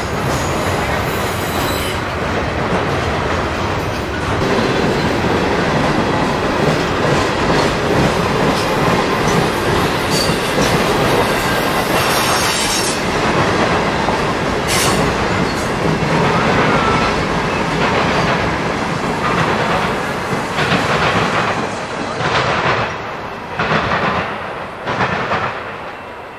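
Freight train cars rolling past close by: steady rumble of steel wheels on rail with some wheel squeal and clickety-clack over the rail joints. The clacks stand out more near the end as the sound fades with the last cars going by.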